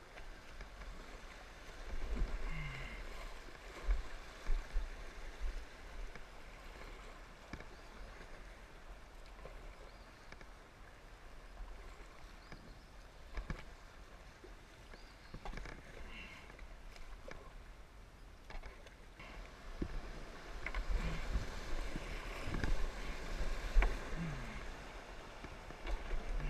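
Kayak paddle strokes splashing through fast, shallow creek water, with the creek rushing over riffles underneath. The sound grows louder about two seconds in and again through the last several seconds as the boat runs rougher water.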